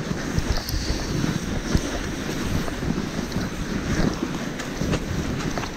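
Wind buffeting the microphone in a steady rushing noise, with scattered small clicks and crunches.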